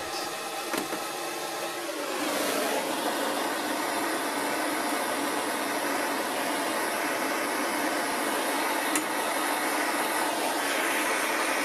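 Handheld gas blowtorch flame burning with a steady hiss, heating the base of a seized spark plug. The hiss gets louder and fuller about two seconds in.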